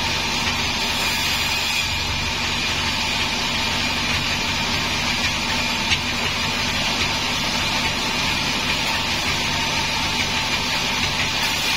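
Sawmill band saw running steadily while ripping long hardwood boards: a constant machine hum with a thin high whine and the hiss of the blade through the wood. There is one sharp tick about halfway through.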